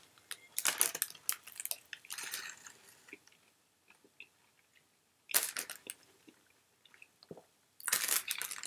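Biting into and chewing a fast-food fish taco with breaded fish and lettuce: short bursts of crunching with pauses between them, and the paper wrapper crinkling near the end.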